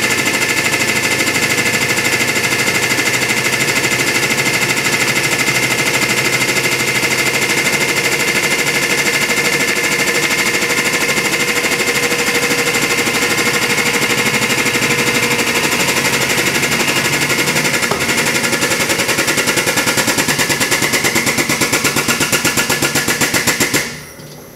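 Hydraulic press pump running loudly and steadily with a fast, even pulse and a steady whine as the ram presses down, then cutting off suddenly near the end.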